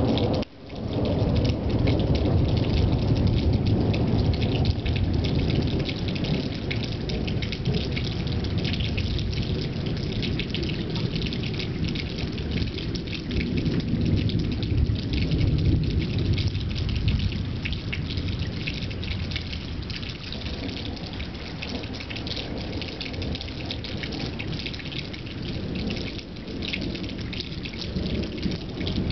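Steady rain pattering, with a low, drawn-out rumble of thunder underneath that is heaviest in the first half. The sound cuts out for a moment about half a second in.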